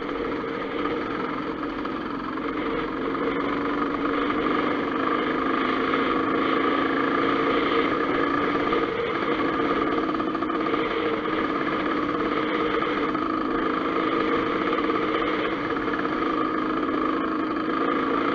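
Dirt bike engine running at a steady, even speed, heard from on the bike while riding.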